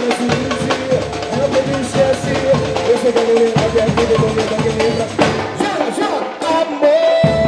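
Song playing: a melodic lead line over steady drums and percussion. Near the end the bass and low drums drop out for about two seconds, then come back in under a held note.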